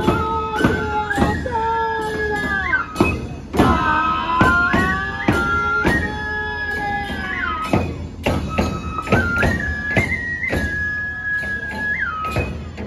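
Neputa festival music (neputa bayashi): Japanese bamboo transverse flutes play a melody with sliding and stepping notes over repeated taiko drum strikes.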